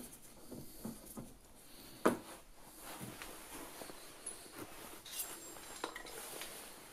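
Quiet handling sounds from a screwdriver and a fastener at a plastic wheel arch liner: scattered faint clicks and taps, with a sharper click about two seconds in.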